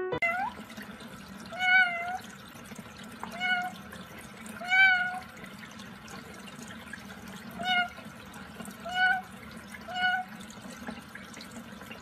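White-bellied caique giving about six short calls, each rising and falling in pitch, a second or two apart, over the steady hiss of a thin stream of tap water running beside it.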